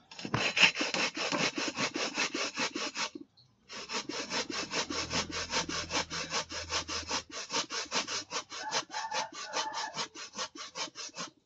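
Coconut flesh being grated by hand on a flat metal grater held upright in a stone mortar: quick, even rasping strokes, about five a second, with a short break about three seconds in.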